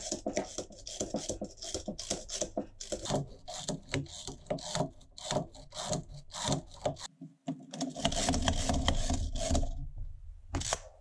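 Millers Falls spiral ratchet (Yankee) screwdriver with a hex bit adapter being pumped to drive and remove screws: quick metallic clicks and rattles from repeated push strokes. A break about seven seconds in is followed by a steadier, louder stretch of noise, then a single click near the end.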